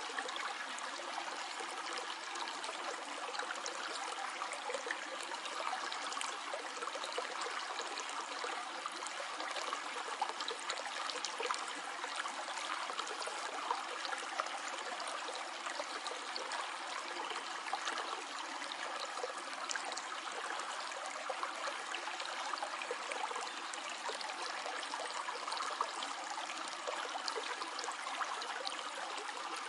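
Stream water flowing steadily: a continuous rushing babble dotted with many small splashes and droplets.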